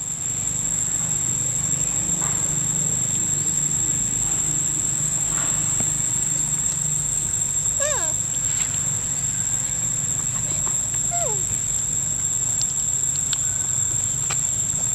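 Steady high-pitched drone of insects in the forest, over a low steady hum. Two short falling animal calls come about eight and eleven seconds in, and a few faint clicks follow near the end.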